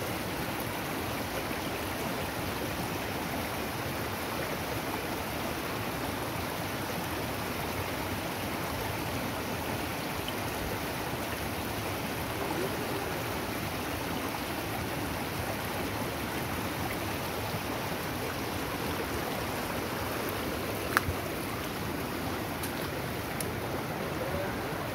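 Muddy floodwater of a stream rushing steadily, a constant even wash of water noise. One sharp click stands out late on.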